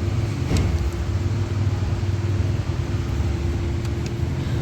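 Honda Fit engine idling with a steady low hum.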